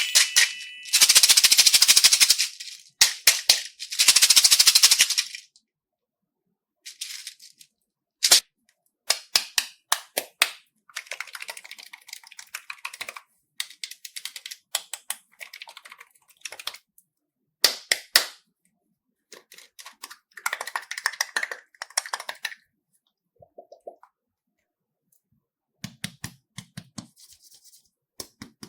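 Slime being handled: two loud stretches of dense crackling near the start, then scattered sharp clicks and short crackly bursts with silent gaps between them.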